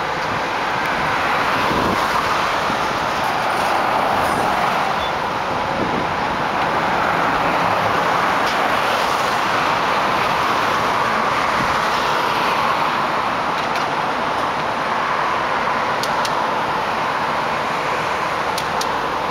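Fire apparatus diesel engines running steadily, with a car passing on the street about ten seconds in.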